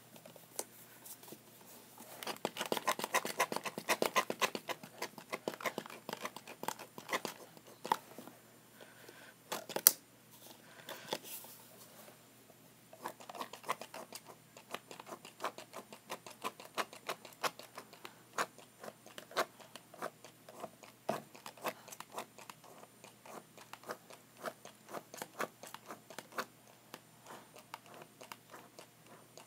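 Slime being handled as soap is poured and worked into it: irregular small sticky clicks, crackles and squelches, which get busier and more steady from about halfway on.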